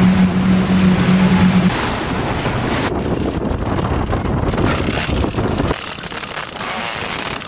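Sailboat's engine running with a steady drone over rushing wind and water; the drone stops about a second and a half in. From about three seconds in, wind buffets the microphone while the boat is under sail.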